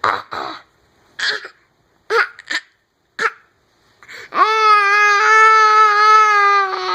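A one-year-old baby's fake coughs: four short coughs about a second apart, then a long, steady, high-pitched vocal 'aah' held for about three seconds.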